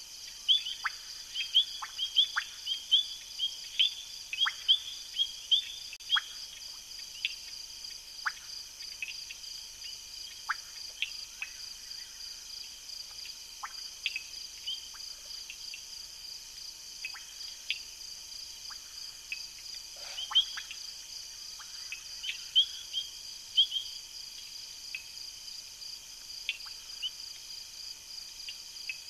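Night chorus at a waterhole: a steady, high insect trill, with many short chirps that sweep down in pitch, coming in quick runs in the first few seconds and again later on.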